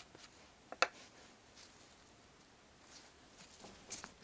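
Quiet food-handling sounds: a slice of crustless white bread set down by a gloved hand, with one sharp click about a second in, then a wooden spatula scraping soft butter in a ceramic bowl, a few light clicks near the end.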